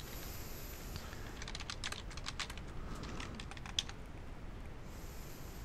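Typing on a computer keyboard: a quick run of keystrokes in the middle of the stretch, with only a few scattered clicks before and after.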